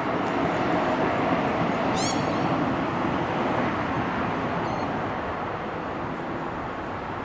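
Steady rumble of a passing suburban train, slowly fading. A short, high bird chirp comes about two seconds in, and fainter chirps near the end.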